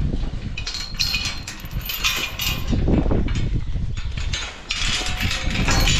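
Steel livestock gate panels clattering and rattling as they are handled, in two spells, over a steady low rumble of wind buffeting the microphone.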